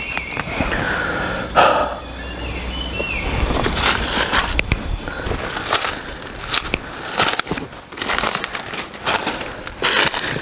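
Forest ambience: a steady high-pitched insect drone with a few bird calls near the start, then footsteps rustling through leaf litter and low plants from about four seconds in.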